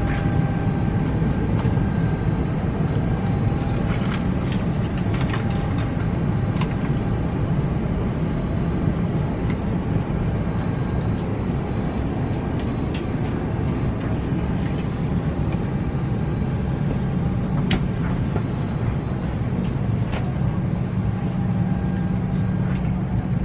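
Steady low rumble of a vehicle's engine heard from inside, with a faint steady whine and a few scattered clicks.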